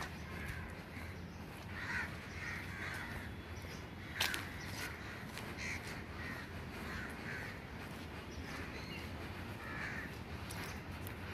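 Crows cawing again and again over the steady low rumble of slow-rolling LHB passenger coaches, with one sharp knock about four seconds in.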